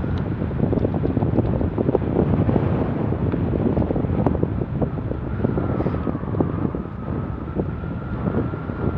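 Wind buffeting the microphone of a bicycle-mounted camera while riding at about 15 to 18 mph, a steady low rushing noise with a faint thin whine from about halfway through.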